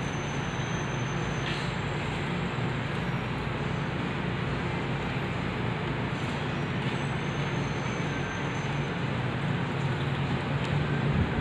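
Steady background noise: a low rumble with a hiss over it, even throughout.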